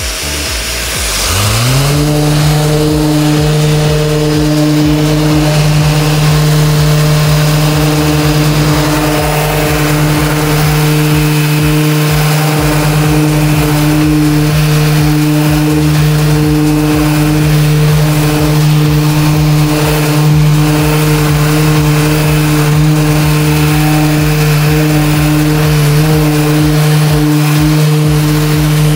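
Orbital sander spinning up about a second in, then running at a steady speed with a constant hum as it sands a bare steel body panel.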